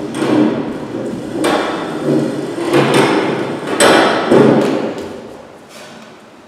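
Metal-legged plastic chairs being pushed around and set down on a hard floor: a string of sharp knocks and clatters, the loudest a little before and after the four-second mark, dying away over the last two seconds.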